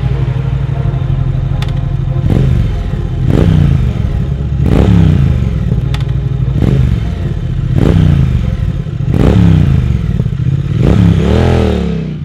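Triumph 1200 cc parallel-twin motorcycle engine being revved through a Vance & Hines exhaust. It gives a run of throttle blips about one a second, each rising in pitch and falling back, with the last swell near the end dying away.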